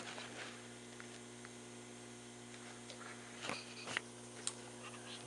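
Steady electrical hum with a few light clicks and knocks from hand work on the mill's rotary table, about three and a half, four and four and a half seconds in.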